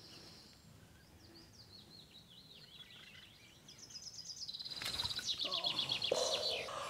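Small birds chirping in the reeds, then a loud rapid trill of high notes, about ten a second, from a little before the middle. Near the end comes a sudden swish and a splashy burst as the angler strikes at a carp taking a floating bait and misses it.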